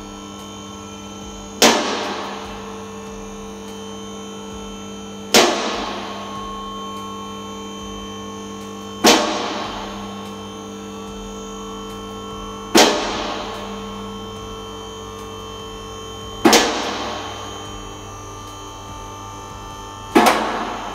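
Two-post car lift raising a car: its hydraulic pump motor hums steadily while the lift gives a loud metallic clank about every three and a half seconds, six in all, each ringing out for about a second, as the carriages ratchet past their safety locks.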